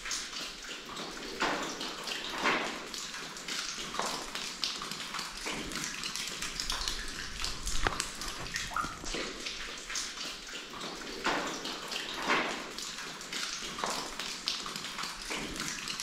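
Water running and trickling inside a cave, a steady hiss with irregular short knocks about every second or so.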